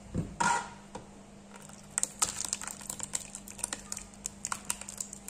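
Thick chicken-and-oatmeal stew glopping and splattering as it is poured from a steel stockpot into a stainless steel bowl: a knock near the start, then from about two seconds in a rapid, irregular run of wet splats and clicks.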